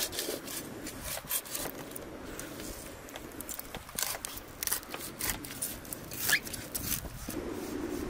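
Large knife cutting through a big fish behind the head, crunching through bone and skin in a run of irregular sharp snaps and crackles, the loudest about six seconds in.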